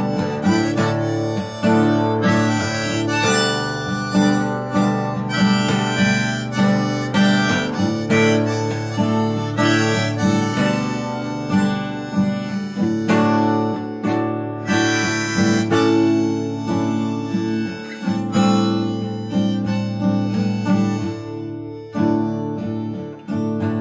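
Harmonica in a neck rack playing an instrumental break over a strummed steel-string acoustic guitar. Near the end the harmonica stops and the guitar strumming carries on alone.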